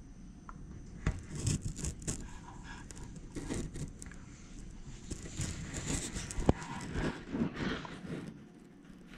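Rustling and scraping handling noise on the recording device's microphone, with scattered sharp clicks and one louder click about six and a half seconds in; it settles down near the end.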